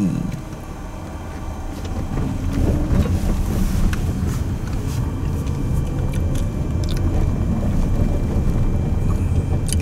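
Car driving, heard from inside the cabin: a steady low engine and road-noise rumble that grows louder about two seconds in.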